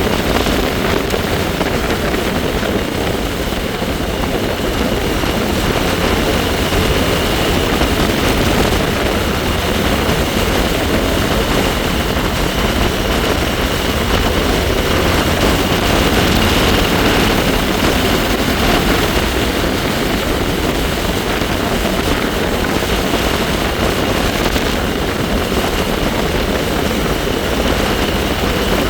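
Wind rushing over the microphone during a bike ride, steady throughout, with a faint high whine from the bike running underneath it.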